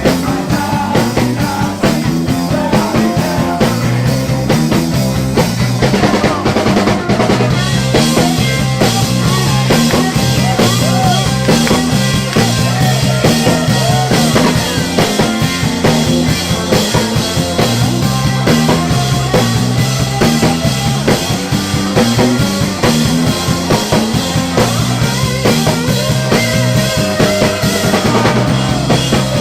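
Live rock and roll band playing, with drum kit, electric bass and guitar, over a steady driving beat and a repeating bass line.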